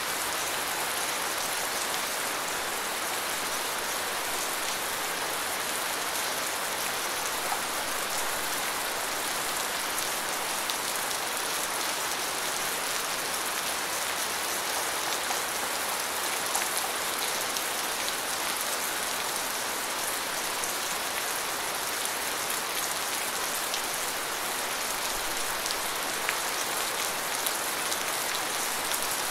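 Steady rain falling on a surface: an even hiss of many drops, with a few slightly louder drop hits here and there.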